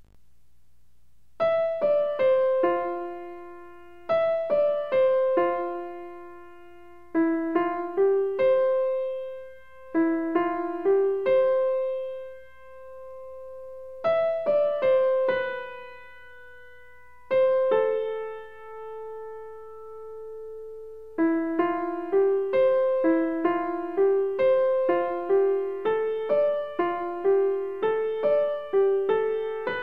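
Background piano music: a gentle melody of single struck notes in short phrases with pauses between them, becoming a busier, steadier run of notes about two-thirds of the way through.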